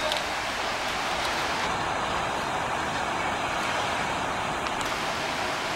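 Steady rushing outdoor background noise, even and unpitched, with a few faint clicks.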